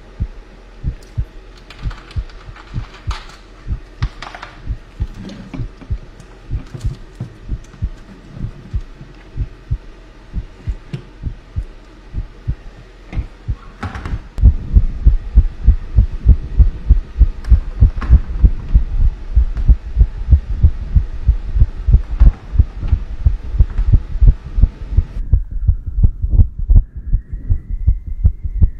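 Heartbeat sound effect: a steady run of low, closely spaced thuds that gets much louder about halfway through, with a few light clicks and knocks over it in the first half.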